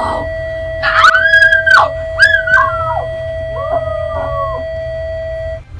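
A young woman's high-pitched, drawn-out wailing cries of protest, three in a row, the second falling away and the third softer and lower. Under them a steady alarm tone sounds without a break, which she takes for the ship's fire-drill alarm.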